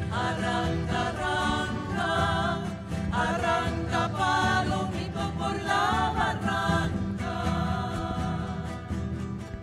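Live Chiloé folk song: several women singing together in short phrases with vibrato, accompanied by acoustic guitar and accordion.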